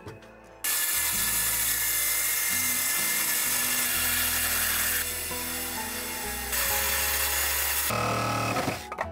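DeWalt cordless circular saw cutting into a wooden-plank countertop. It starts suddenly about half a second in, eases off for a moment midway, and cuts again. Near the end comes a shorter whining run from another handheld power tool, with background music underneath.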